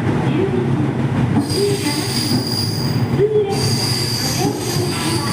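Train rolling on the rails with a steady rumble and a high, steady wheel squeal that comes in about a second and a half in, breaks off briefly, then returns.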